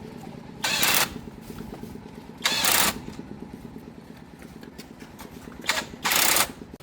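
Tractor engine idling steadily, cut by four short, loud hissing bursts: one about a second in, one around two and a half seconds, and two close together near the end.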